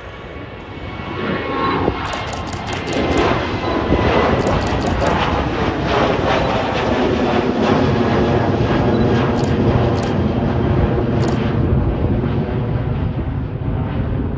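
A Boeing 737-700's twin CFM56-7B jet engines at takeoff thrust as the airliner climbs out overhead: a broad roar that builds over the first few seconds, then holds steady and loud.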